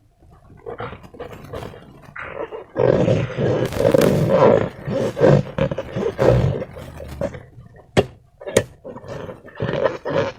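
Slime being squeezed and worked with a balloon, giving a loud, irregular squelching and rubbery creaking, with two sharp clicks about eight seconds in.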